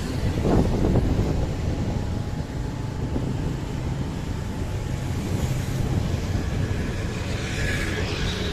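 Steady low road rumble with wind buffeting the microphone.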